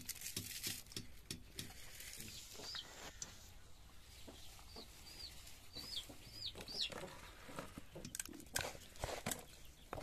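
Chickens clucking, a quick run of low clucks near the start, then a handful of short high peeps between about three and seven seconds in. Near the end come rustling and squishing clicks of hands mixing small fish with turmeric.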